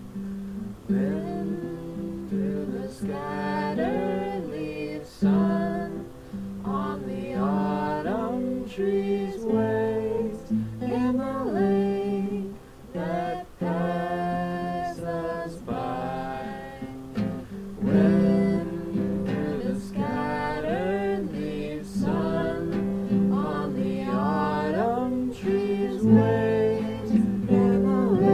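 A song: a voice singing over acoustic guitar.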